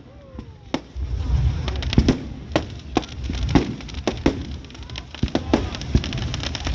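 Fireworks going off: an irregular series of sharp bangs, roughly two a second, over a low rumble.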